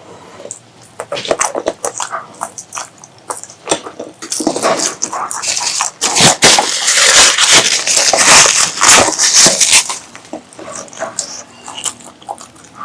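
Close-miked eating sounds: wet chewing and lip smacks in quick clicks, then several seconds of loud slurping from about halfway through.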